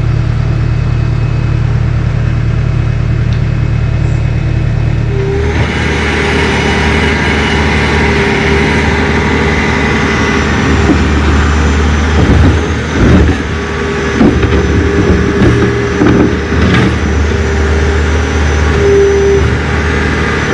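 An engine running steadily, its note changing about five seconds in, with a run of knocks and rattles a few seconds after the middle.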